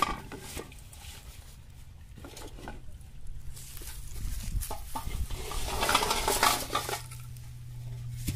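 Empty plastic bottles knocking and rattling against a large metal basin as they are handled and tipped out onto grass. The clatter comes in irregular knocks and scrapes, loudest about six seconds in.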